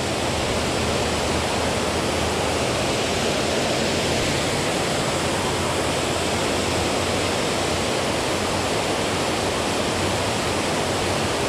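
Water pouring over a dam spillway: a steady, even rush of falling water.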